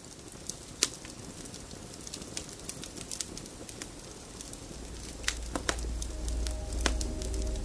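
Wood fire crackling with irregular sharp pops. About five seconds in, a low droning music pad with held tones fades in under the crackle.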